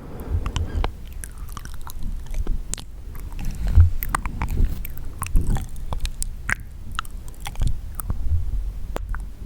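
Close-miked wet mouth sounds: irregular clicks and smacks of the tongue and lips, several a second.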